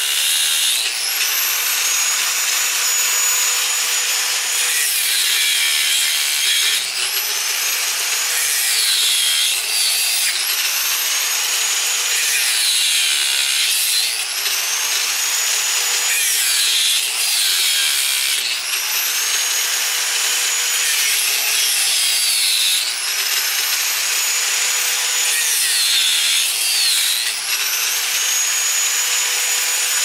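Angle grinder with a cutting disc grinding through the copper windings of an air conditioner motor's stator. Its high whine sags in pitch each time the disc bites into the metal and climbs back as the load eases, over and over, under a steady gritty cutting hiss.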